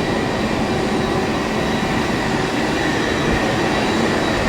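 Steady airport apron noise from turbine machinery: a constant rumble with a faint, thin high whine running through it.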